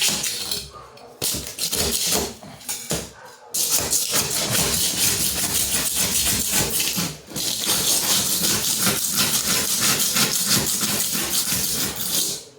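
Old thin-set mortar and grout being scraped and chipped off a floor where tiles came loose: a continuous harsh scraping full of rapid small clicks, broken by brief pauses about one, three and seven seconds in.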